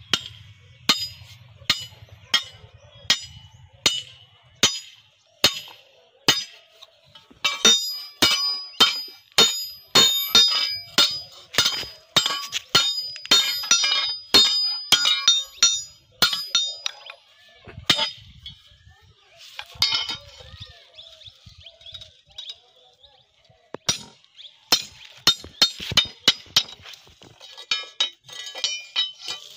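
Hammer tapping metal on an iron anvil block while an iron handle is fitted to a billhook blade: sharp ringing clinks, a few spaced strokes at first, then a quicker run of blows, a pause past the middle, and another run near the end.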